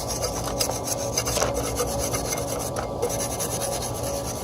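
Repeated scraping and rubbing as caked dirt is cleaned out of an exhaust fan housing, the dirt build-up blamed for killing the old fan motor.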